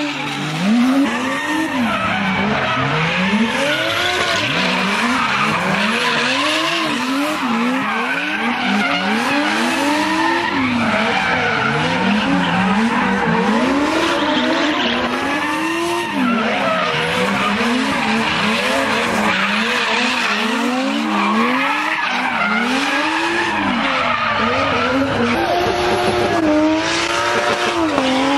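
Drift cars' engines revving up and down over and over, about once a second, with tyres squealing and screeching as they slide. Near the end an engine holds at high revs while a flame shoots from its exhaust.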